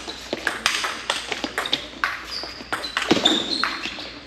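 Table tennis ball making repeated sharp clicks off the rubber paddles and the table, with a few short high squeaks.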